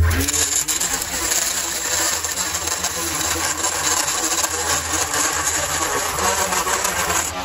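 String trimmer edging along a concrete walkway: the spinning line slashing grass and scraping the concrete edge, with a dense, steady rasp. The motor speeds up sharply at the start.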